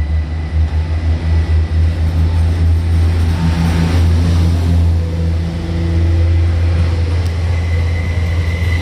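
Elron Stadler FLIRT multiple unit moving along the platform, a loud low rumble with a faint steady high tone above it and a brief rush of noise a few seconds in.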